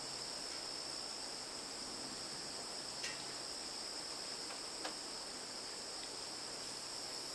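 Crickets singing, a steady high two-pitched trill that holds without a break. Two faint clicks come about three and five seconds in.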